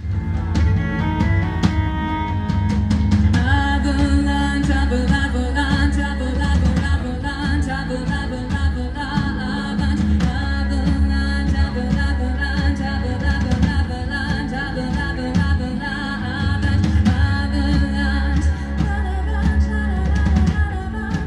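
Folk-metal band playing live in a club, heard through a phone among the crowd: a sparser opening, then drums, guitar and bass come in fully about three seconds in, with singing over the top.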